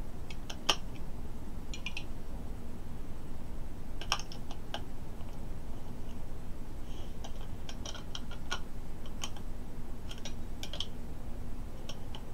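Scattered small clicks and taps of a vape mod being handled as 18650 lithium-ion batteries are put back into it, coming in short clusters with pauses between.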